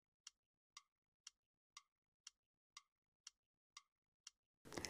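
A clock ticking quietly and evenly, two ticks a second, alternating tick and tock.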